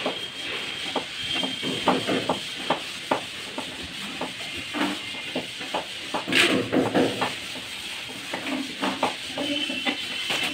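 Irregular light clicks and scrapes of a hand screwdriver working the screw of a steel chimney mounting bracket, with a short harsher scrape about six seconds in as the bracket is handled.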